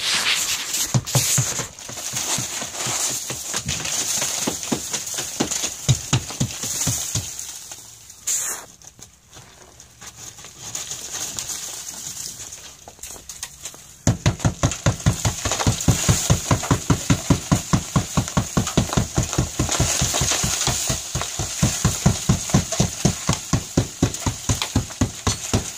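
Hammer knocking and scraping at a soft, crumbling sand-and-cement stucco scratch coat over metal lath, breaking it loose; the coat has failed because dish soap was mixed into it. Scattered blows with a quieter stretch in the middle, then rapid, regular strikes about four a second.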